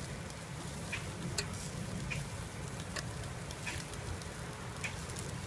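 Bacon-wrapped brats, steak and hot dogs sizzling on a grill: a steady hiss with scattered sharp pops.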